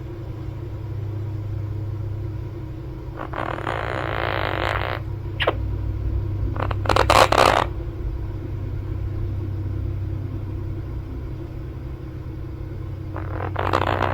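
Quaker parrot snoring as it naps: raspy, breathy snores, one about three seconds in and another near the end, over a steady low hum. Around seven seconds a short, louder scratchy noise cuts in.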